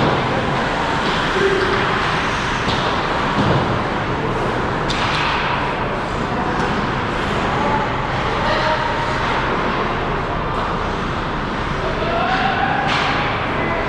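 Ice hockey game in play: a steady wash of rink noise with several sharp clacks of sticks and puck, and short shouts from players.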